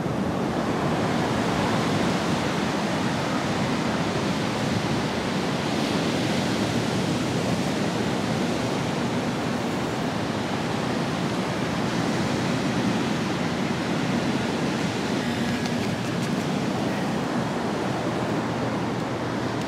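Steady rush of ocean surf on the beach, mixed with wind.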